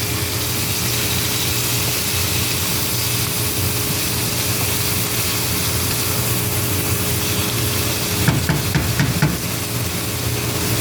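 Pork sizzling steadily in a hot pan with soy sauce and fish sauce, over a steady low hum. A quick run of utensil clacks against the pan about eight seconds in.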